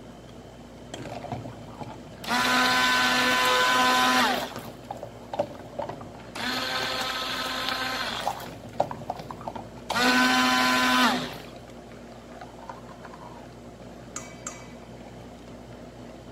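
Handheld stick blender running in three bursts of about two seconds each, blending a thick cream emulsion in a stainless steel bowl. The motor's whine drops in pitch as it winds down at the end of each burst. Light clicks and knocks come between the bursts.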